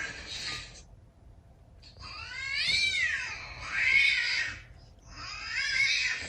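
Cat meowing in long, drawn-out calls that rise and fall in pitch: one trails off at the start, a long wavering call fills the middle, and another begins near the end.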